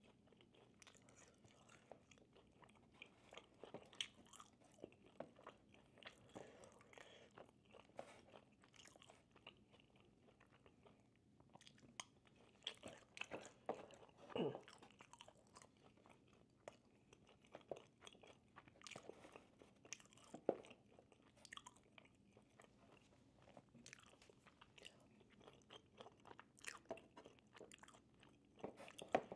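Quiet, close-up chewing and biting of food: irregular soft clicks and crunches, with a few louder bites along the way.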